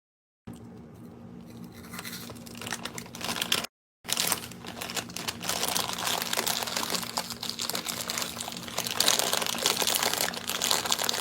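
A plastic snack bag, a bag of cheese puffs, crinkling and rustling as it is handled, starting about half a second in and growing louder, with a short break a little under four seconds in.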